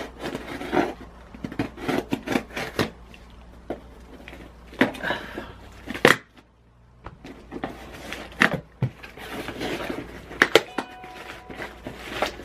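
Hands opening a gift package: rustling with frequent sharp knocks and clicks as the box and wrapping are handled.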